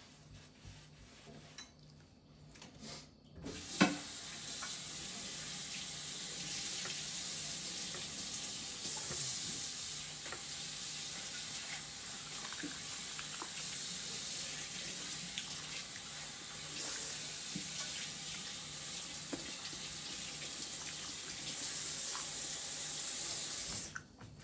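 Kitchen faucet running steadily into a stainless-steel sink while dishes are washed, with small knocks of dishes along the way. It starts with a sharp knock about four seconds in and shuts off near the end.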